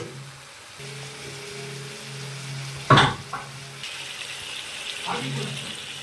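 Chicken curry frying in a pan as it is stirred with a steel spatula, with one sharp knock of the spatula against the pan about halfway through and a sizzling hiss in the second half. A steady low hum runs under the first half.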